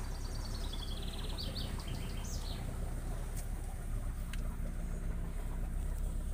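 Steady low hum of an idling off-road vehicle engine, with a songbird singing a quick trill of high notes that dips and then sweeps up over the first two and a half seconds.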